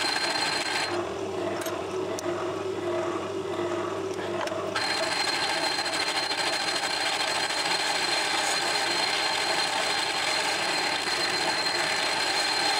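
Metal lathe running with its four-jaw chuck spinning while a parting tool cuts off a soldered brass split-bearing blank. The sound is steady with a high whine; from about a second in, for roughly four seconds, the whine drops away and a lower hum takes over, then the first sound returns.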